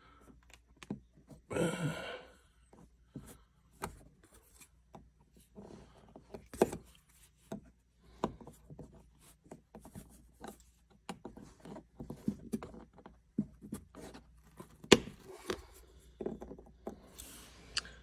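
Plastic pry tool working a small plastic cover loose from the seat-belt pillar trim of a 2022 Honda Civic: irregular clicks, taps and short scrapes of plastic on plastic, with a denser scraping burst about two seconds in.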